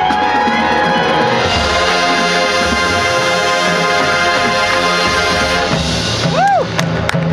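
Marching band music: the brass section holds a loud, full chord over the front-ensemble percussion. Near the end a short tone swoops up and back down in pitch, followed by sharp percussion hits.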